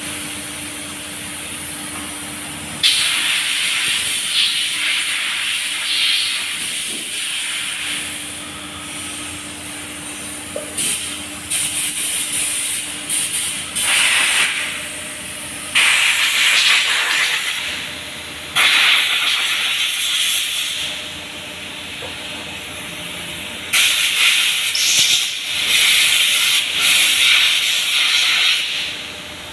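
Loud hissing in four or five long bursts lasting one to five seconds each, over a faint steady hum.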